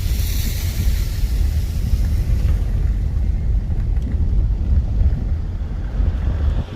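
Heavy rain with strong wind buffeting the microphone, making a loud low rumble under a rushing hiss that is strongest in the first couple of seconds.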